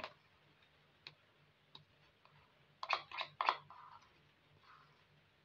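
A metal spoon clicking and scraping against plastic bowls as butter is scraped into flour. There are a few light clicks, then three louder scrapes about halfway through.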